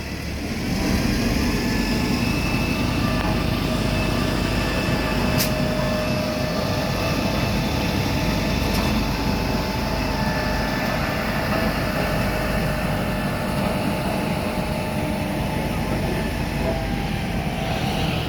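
Heavy diesel machinery running steadily at a constant level, a deep rumble with a faint steady whine above it.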